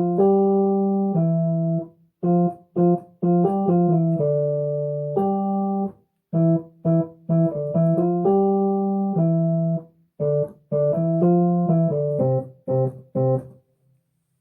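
A simple children's-song melody played note by note on an electronic keyboard with a piano-like sound, in four short phrases with brief pauses between them. The playing stops a little before the end.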